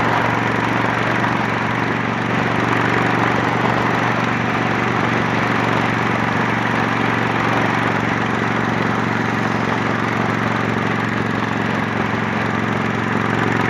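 Honda Shadow 750's V-twin running at a steady cruise through an aftermarket Torbal 3-inch sport exhaust, under steady wind and road noise.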